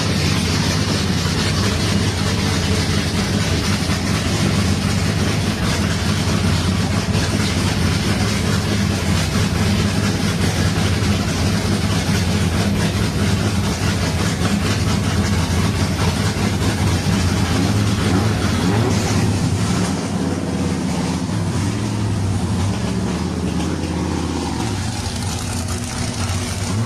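GM LS3 6.2-litre V8 idling through an ORD race exhaust with a steady, deep rumble; the note wavers slightly in the last few seconds.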